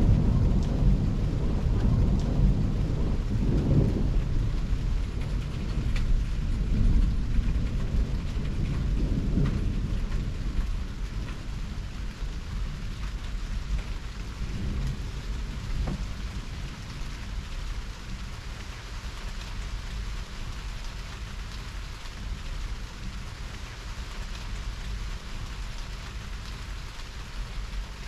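Rolling thunder rumbling after a nearby lightning strike, loudest at the start and dying away over roughly the first ten seconds. Steady heavy rain continues beneath it, with scattered drops ticking.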